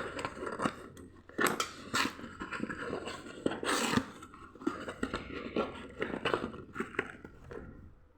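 A delivery package being handled and opened: irregular crinkling and rustling of packaging with small clicks, and a longer tearing rustle about four seconds in.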